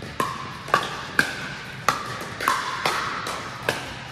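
Pickleball paddles striking a plastic pickleball in a fast rally: about seven sharp, hollow pops at uneven intervals, each with a brief ring. The hits echo around a large indoor court hall.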